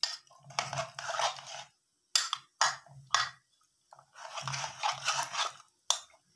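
Metal spoon stirring and scraping through thick mutton curry inside a pressure cooker pot, in irregular strokes, some long and some short and sharp.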